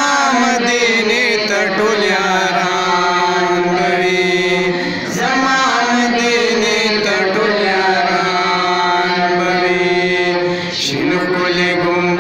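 A boy's solo voice reciting a Pashto na'at, unaccompanied, into a microphone. He sings long, held, ornamented melodic phrases and pauses briefly for breath about five seconds in and again near the end.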